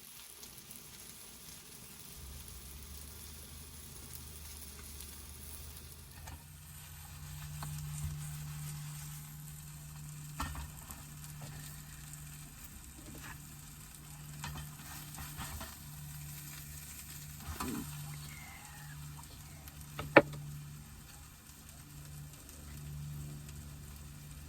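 Makeshift omelet frying in a pan, a steady sizzle. A low hum comes in about six seconds in, and a few sharp clicks or knocks sound over it, the loudest about twenty seconds in.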